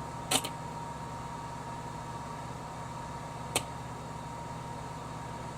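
Two sharp clicks, a double one just after the start and a single one about three and a half seconds in, as wires are touched to an Astro van's power door lock actuator with the polarity reversed and the actuator throws. A steady low hum with a faint high tone runs under them.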